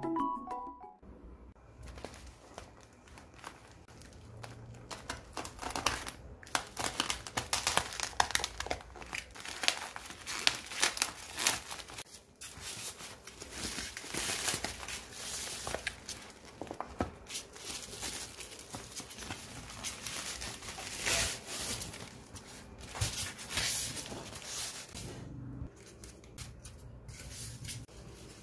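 Plastic parcel packaging crinkling and tearing as a boxed item is pulled out of a bubble-wrap-lined plastic mailer: a dense run of crackles and rustles, starting about two seconds in and easing off near the end.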